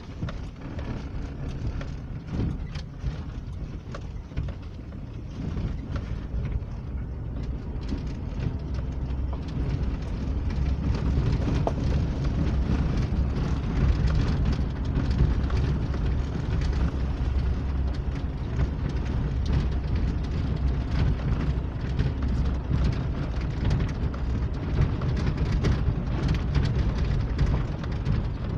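Car cabin noise while driving on a rough rural road: a steady low rumble of engine and tyres with a dense crackle of loose stones under the wheels, getting louder about ten seconds in as the surface turns to gravel.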